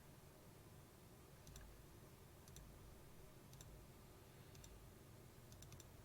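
Faint computer mouse button clicks, about one a second and then three in quick succession near the end, over quiet room tone.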